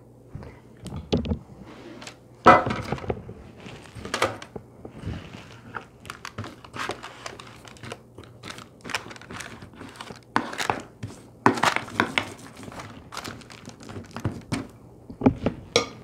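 A metal spoon scooping a stiff suet, seed and oat mixture and packing it down into a parchment-lined metal baking pan: irregular knocks, taps and scrapes, with the parchment paper crinkling. One louder knock about two and a half seconds in.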